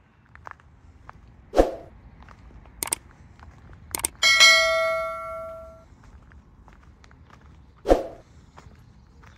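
Subscribe-reminder sound effect: a short pop, two mouse clicks, then a bell chime that rings out and fades over about a second and a half, and another pop near the end. Faint footsteps on a gravel towpath underneath.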